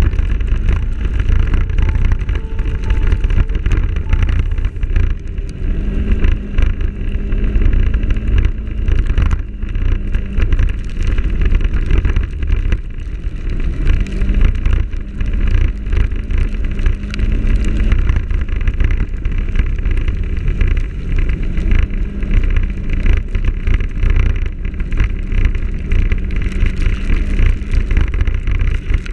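Wind buffeting the microphone of a camera on a moving motorcycle, a heavy steady rumble, with the motorcycle engine's note faintly underneath, shifting in pitch a few times.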